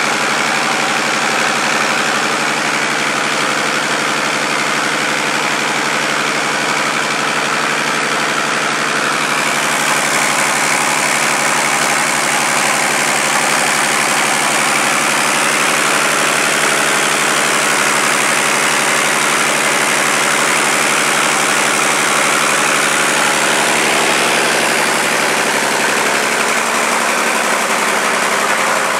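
Deutz BF6M1015 V6 diesel being turned over steadily by an electric break-in stand without firing: a motored preliminary run-in of the warm engine. The engine and the stand's drive make an even, unbroken running sound.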